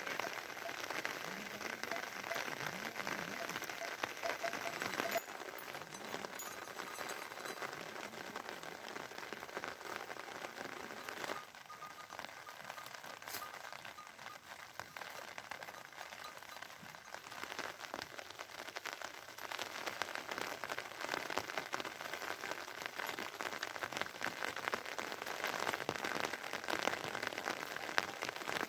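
Rain falling steadily, a dense haze of fine drop ticks. It turns quieter about eleven seconds in and builds again over the last several seconds.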